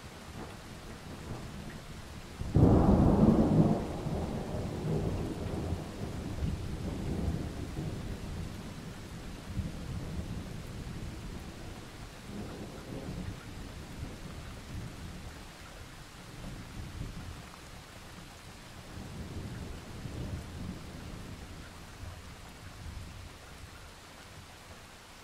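Thunder over steady rain: a sudden loud clap about two and a half seconds in, then a low rumble that rolls on and fades over the next twenty seconds with a few smaller swells.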